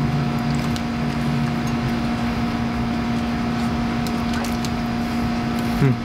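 Steady mechanical hum, like an air conditioner or fan, with a constant low drone and a higher steady tone over an even hiss. Faint ticks of chewing sit under it, and a short falling 'mm' from a voice comes just before the end.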